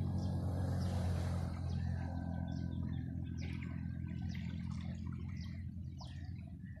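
A motor vehicle's engine running with a steady low hum that slowly fades toward the end, with a brief rush of noise about a second in.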